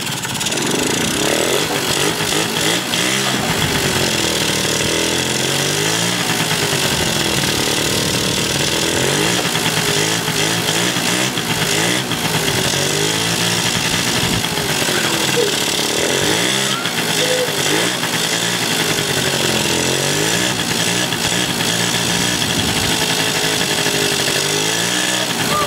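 Yamaha Jog scooter's 50cc two-stroke single-cylinder engine running, its speed rising and falling again and again, one swing every two to three seconds.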